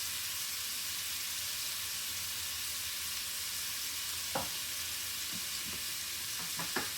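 Diced chicken breast frying in sesame oil in a skillet, a steady sizzle. A short click sounds a little past halfway and two more near the end.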